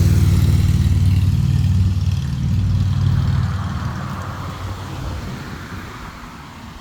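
A road vehicle's engine drones close by for about three seconds, then fades as the vehicle moves away.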